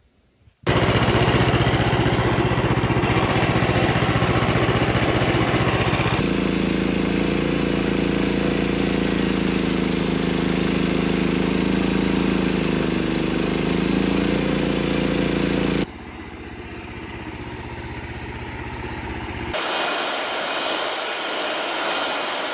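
Norwood LM30 portable bandsaw mill running and cutting a pine log, with its engine held at speed. The sound changes abruptly about six seconds in, drops quieter at around sixteen seconds, and picks up again near twenty seconds, as with separate cuts squaring the log.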